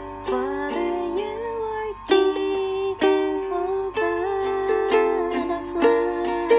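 Ukulele strummed in chords, in an uneven rhythm with brief breaks about two and four seconds in.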